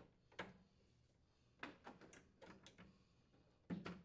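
Faint plastic clicks and knocks as a refrigerator water line is pressed into its plastic retainers: about six short taps, with the loudest near the end.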